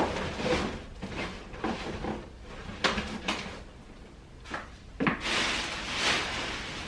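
Latex balloons being handled and pressed onto a balloon column, with several sharp knocks, then a large plastic bag of inflated balloons rustling from about five seconds in.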